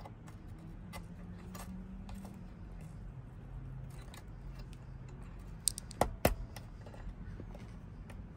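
Small light clicks and ticks of small plastic-and-metal parts being handled: LED dash light bulbs being fitted into their sockets. A couple of sharper clicks come about six seconds in, over a faint steady low hum.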